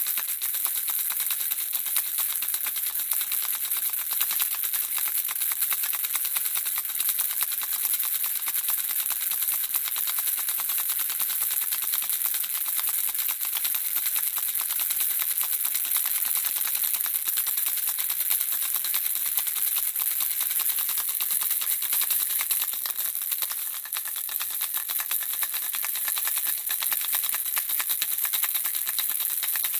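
Handheld baby rattle shaken without pause, the small pellets inside clicking in a dense, fast, bright patter. The patter dips briefly about three-quarters of the way through.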